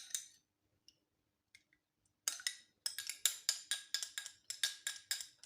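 Egg yolk and hot milk being beaten briskly in a bowl, the utensil clicking against the side in a fast even run of about six strokes a second, starting about two seconds in.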